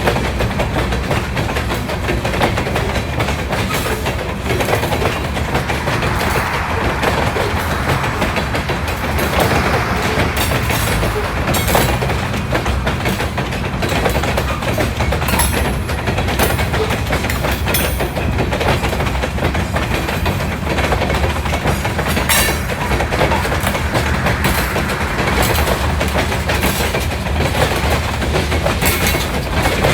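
Canadian Pacific freight train rolling past, a steady rumble with frequent sharp clicks from its wheels over the rail joints.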